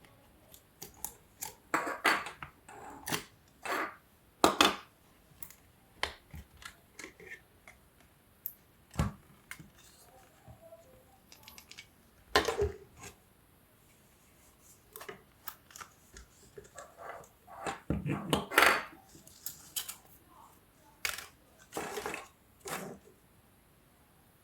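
A hair dryer being handled and taken apart: irregular clicks, knocks and short scrapes of its parts, with a few louder knocks about two, four and a half, twelve and eighteen seconds in.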